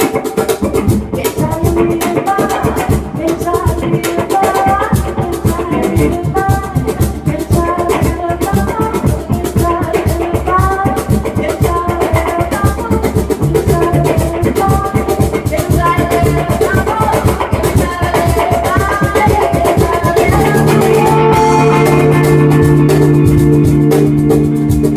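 A live band playing an instrumental passage: a fast melodic lead line of short, bending notes over busy drums and bass. About twenty seconds in it moves to long held chords.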